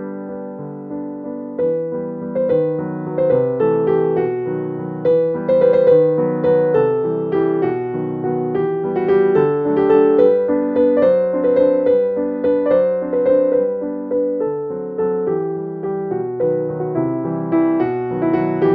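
Background piano music: a steady run of soft melodic notes.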